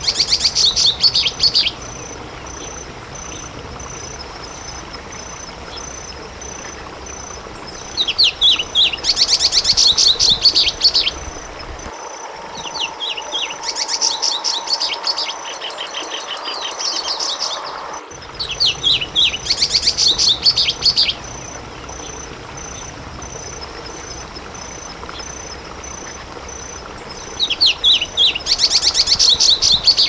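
Plumbeous seedeater (patativa) singing: five phrases of quick, high, sweet notes, each a second or a few seconds long, with pauses of several seconds between them.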